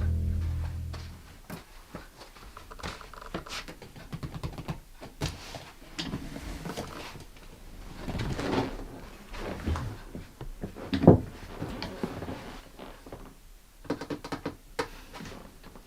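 Music fades out in the first second, then come irregular knocks, clicks and thuds of things being handled in a small room. The loudest is a sharp knock about eleven seconds in.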